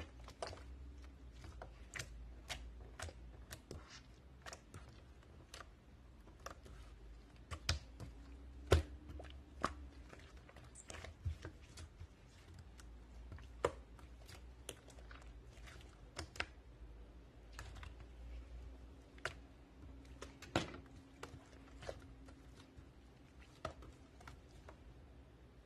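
Slime being squeezed and pressed by hand, giving irregular small clicks and pops, several a second.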